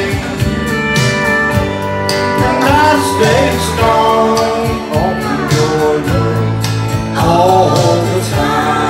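Slow country song: a man singing long, wavering notes into a microphone over a guitar-backed accompaniment.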